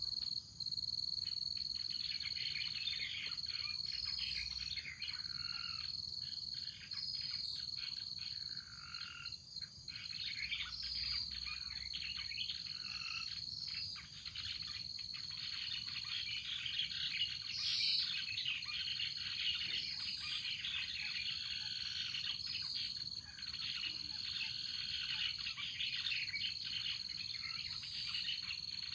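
Many wild birds chirping and calling together over a steady, high-pitched insect drone, as in a morning chorus in the countryside.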